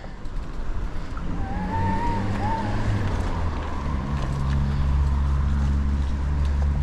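A vehicle engine running with a steady low hum that grows a little stronger partway through. A short wavering high tone sounds about two seconds in.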